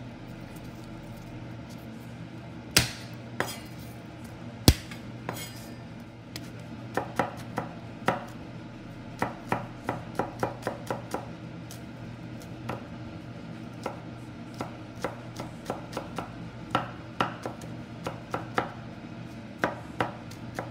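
Chef's knife chopping garlic cloves on a wooden cutting board: irregular runs of short, sharp taps on the board, up to about four a second, starting a few seconds in. Two louder, single knocks come before the chopping starts.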